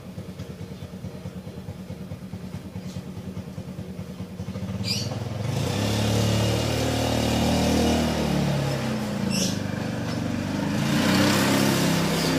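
A small engine running with a rapid, even putter, growing louder about four and a half seconds in, its pitch shifting up and down.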